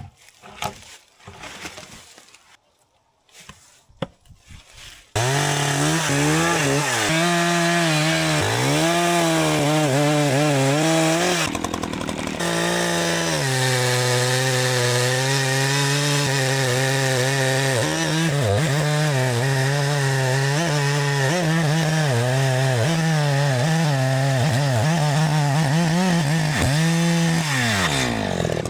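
A few scattered light knocks, then a two-stroke chainsaw running at high revs. Its pitch sags and recovers over and over as it cuts through wood, it drops briefly about halfway through, and it falls off near the end as the revs come down.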